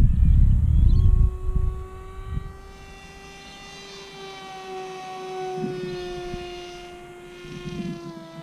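Volantex 757-4 Ranger RC plane's electric motor and propeller whining as it flies overhead: a steady, many-toned drone that rises in pitch about a second in and then holds. Wind buffets the microphone for the first second.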